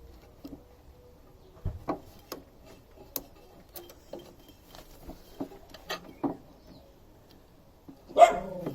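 Scattered light clicks and knocks of metal mower parts being handled and fitted together by hand during reassembly of a roller mower's gearbox. Near the end comes a louder, brief sound that wavers in pitch.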